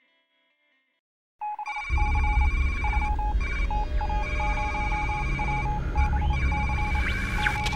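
Computer-readout sound effects: a quick run of short electronic beeps as on-screen text types out, over a deep rumbling drone, starting about a second and a half in. A couple of sweeping electronic glides come near the end.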